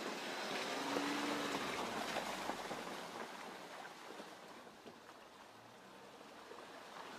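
Range Rover Sport driving slowly over a wet, muddy woodland track: a low engine under the rush and crackle of tyres on wet ground, loudest in the first few seconds and fading as it pulls away.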